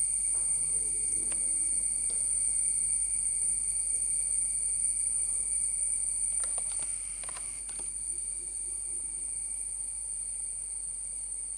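A steady high-pitched drone like insects trilling, with a few faint short sounds around one second in and again two-thirds of the way through.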